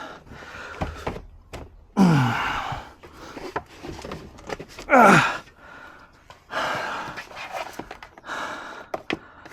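A man breathing hard with effort, with two loud groan-like sounds that slide down in pitch, about two and five seconds in, and several long exhales near the end.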